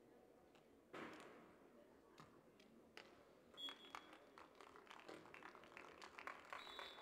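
Faint crowd ambience at a beach volleyball court: scattered claps and knocks that grow busier in the second half, with a louder knock about a second in and a short high tone about three and a half seconds in and again near the end.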